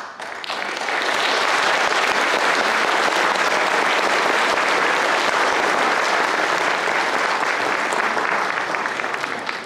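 Audience applauding, swelling over the first second and then steady; it cuts off suddenly near the end.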